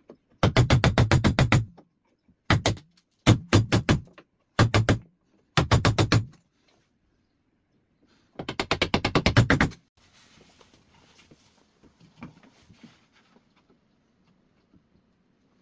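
Chisel being struck in quick flurries of light blows, about ten a second, chopping out the waste between dovetails in a softwood board; seven flurries come in the first ten seconds. After that there are only faint handling knocks as the board is moved.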